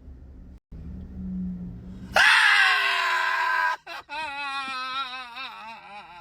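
A person screaming: a long, loud scream starting about two seconds in, then a wavering, shaky scream, and a fainter one near the end.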